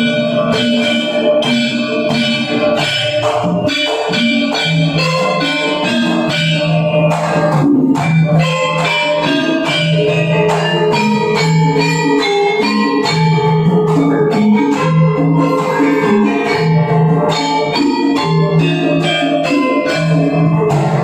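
Javanese gamelan ensemble playing: bronze metallophones and gongs ringing in a steady pattern over kendang hand drums beating a Sragenan-style gedruk rhythm.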